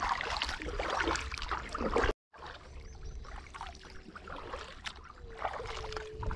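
Kayak paddle strokes in calm creek water: the blades dipping and splashing, water trickling off them. It cuts out abruptly about two seconds in and resumes more quietly.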